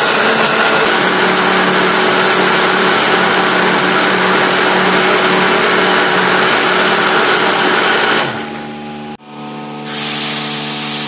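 Electric blender running steadily, puréeing a thick wet paste of chilies, shallots and garlic, then cutting out about eight seconds in. Background music follows.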